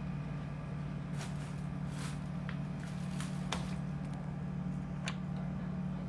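A steady low hum, with a handful of short, sharp clicks and taps in the middle seconds.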